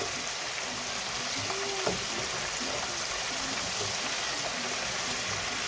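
Breaded chicken wings deep-frying in hot oil: a steady, dense sizzle.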